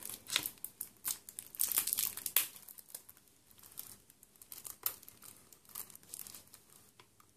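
Plastic shrink-wrap on a CD jewel case crinkling and crackling as it is handled, with light clicks of the plastic case, busiest in the first two seconds or so and sparser after.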